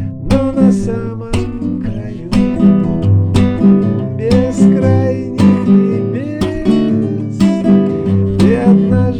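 Music: a guitar strummed in a steady rhythm, with a chord stroke about once a second.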